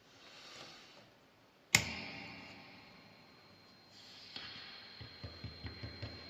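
A metal spring on a handmade cigar-box noise box is struck once, giving a sharp twang with a metallic ring that slowly fades. Toward the end come a series of light ticks and taps.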